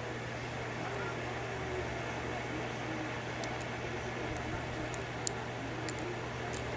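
Light metallic clicks, a handful in the second half, from a lock pick setting pins in a six-pin Dom lock cylinder, over a steady low hum.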